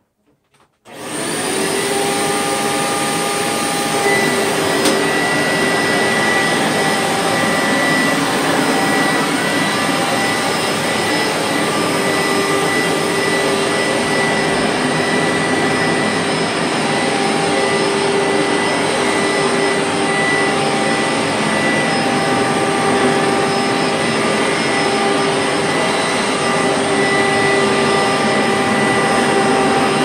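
Hoover SteamVac Widepath carpet cleaner switched on about a second in. Its motor and rotating brushes then run steadily with a constant whine as it is pushed over the carpet.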